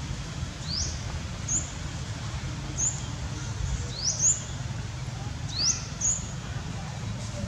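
Baby monkey crying in distress: repeated high-pitched squeals, some sweeping quickly upward and some short and sharp, about one a second, the loudest about four seconds in, over a steady low rumble.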